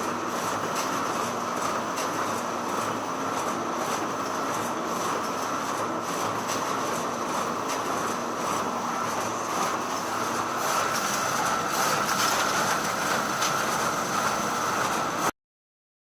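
Photocopier running: a steady mechanical whir with a thin high whine above it, growing a little louder partway through, then cutting off suddenly near the end.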